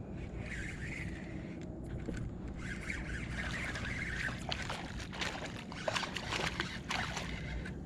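Water sloshing and splashing at the surface over a steady low rumble, with a cluster of sharp splashes in the second half.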